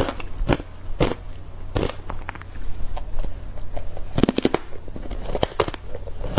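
Teeth biting and crunching hard ice coated in matcha powder, close to the microphone: a few separate sharp crunches in the first two seconds, then a quick cluster of cracks about four seconds in as a new piece is bitten.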